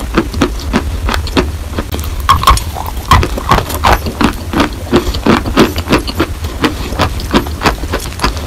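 Close-up mouth sounds of someone chewing a white lump of chalk: a run of wet, crunchy chews about three a second over a steady low hum.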